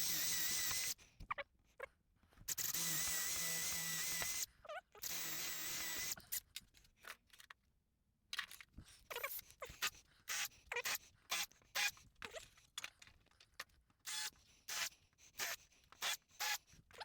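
Power drill running in three bursts of a few seconds each, a steady whirring, followed by a string of short irregular clicks and knocks as the timber and screws are handled.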